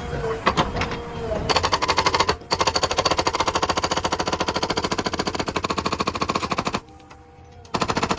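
Rapid, even mechanical hammering, about a dozen blows a second, that stops abruptly near the end and starts again a second later.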